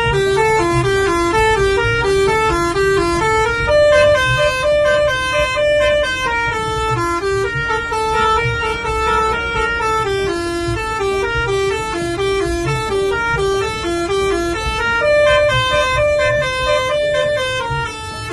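Telolet 'basuri' multi-tone bus horn playing a fast tune of short stepped notes. It runs continuously over a low rumble.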